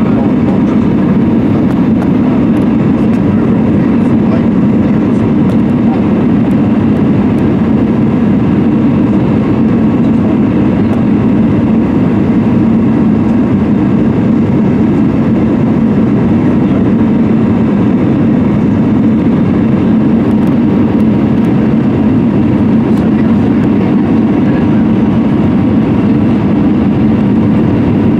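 Cabin noise inside an Airbus A320-200 on approach: a loud, low, steady drone of the engines and rushing air.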